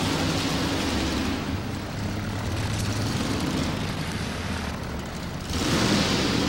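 Chevrolet 4x4 modified pulling truck's engine running as the truck moves up to the starting line. The sound grows suddenly louder and brighter about five and a half seconds in.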